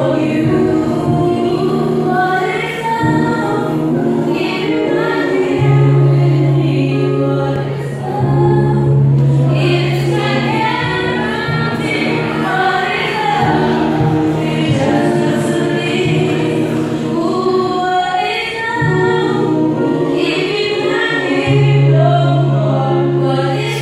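A choir singing in harmony, with a female soloist singing into a microphone in front of it. Steady low notes are held underneath in long stretches that break off and return.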